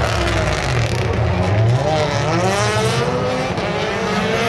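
Rally car engine running hard at high revs. The engine note dips about two seconds in, then climbs again as the car accelerates.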